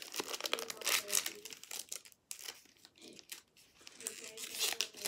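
Trading-card pack wrapper crinkling and tearing as it is torn open by hand, in short irregular rustles.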